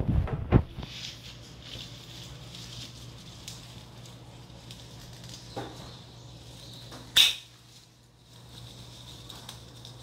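A conure parrot nibbling and snipping at houseplant leaves: a few knocks at the start, light rustling, and one short sharp sound about seven seconds in.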